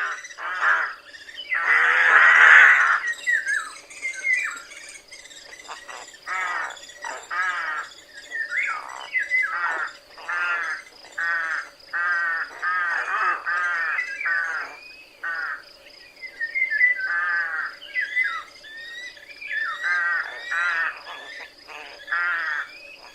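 Rooks cawing: a steady run of harsh, hoarse calls, about one or two a second, the loudest and longest about two seconds in. A faint steady high tone runs underneath.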